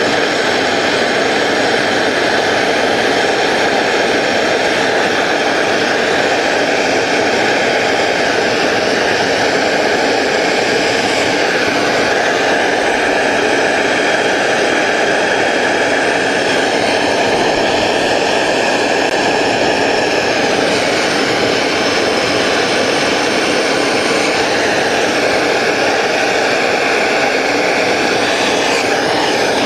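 Hand-held MAPP gas torch burning steadily, its flame making a loud, even rushing noise as it heats a copper boiler end cap for silver soldering.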